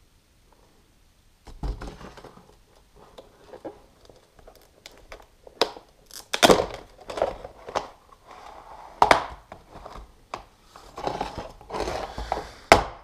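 Stiff clear-plastic blister packaging being handled and opened: crinkling and crackling plastic with sharp clicks and snaps. The loudest snaps come about six seconds in and near the end, after a quiet first second or so.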